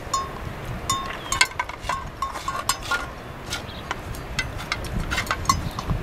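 A large dog eating from a metal bowl on the ground, the bowl clinking and ringing in a quick, irregular run of knocks.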